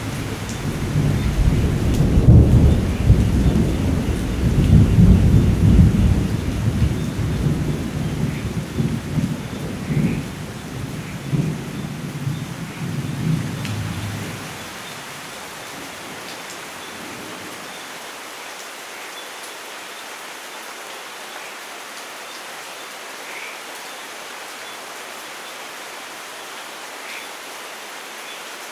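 A long roll of thunder rumbling over steady rain, loudest in the first few seconds and fading away about halfway through, leaving the rain alone.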